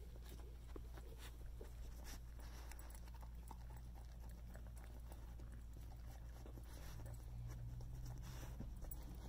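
A young Nova Scotia duck tolling retriever nosing through a fleece snuffle mat and eating kibble: faint sniffing and rustling with scattered small clicks and crunches, over a low steady hum.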